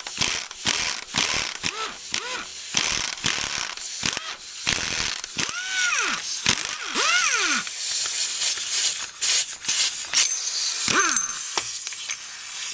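Impact wrench hammering on the nut of a makeshift bearing-cup puller, drawing the old front ball joint of a 2006 Polaris Sportsman 700 out of its housing, with short squeals that rise and fall in pitch.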